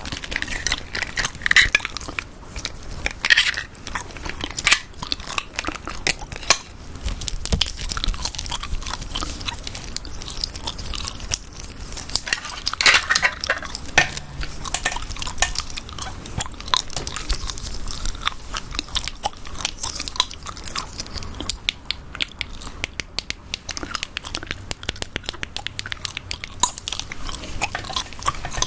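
Gum chewing: a dense, irregular run of small clicks and smacks from the mouth, coming very rapidly near the end.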